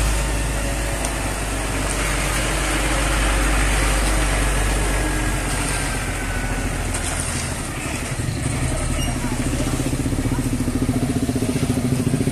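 Concrete mixer truck's diesel engine running close by as the truck pulls up, with a deep rumble. In the second half a fast, even pulsing grows louder.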